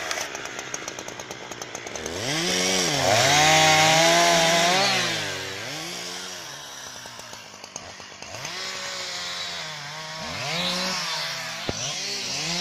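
Husqvarna 365 two-stroke chainsaws working through fallen pine branches, the engine pitch sweeping up under throttle and dropping back to idle several times.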